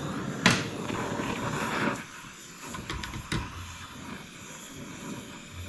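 Gas torch being lit: a sharp pop about half a second in, with the gas hissing, then the flame burns on more quietly from about two seconds in, with one more click a little past three seconds.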